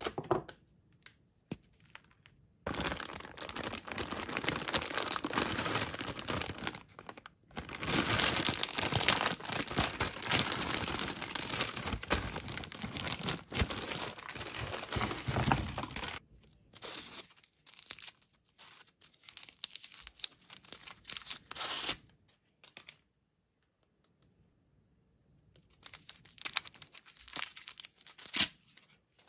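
Candy packaging crinkling and rustling in the hands: a bag of lollipops handled without a break for over ten seconds, then scattered crinkles from wrapped Dum Dums lollipops, with a short pause before a last run of crinkling near the end.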